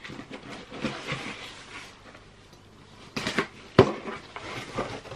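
Cardboard delivery box being opened by hand: the flaps rustle and scrape as they are pulled apart, with a sharp knock a little under four seconds in.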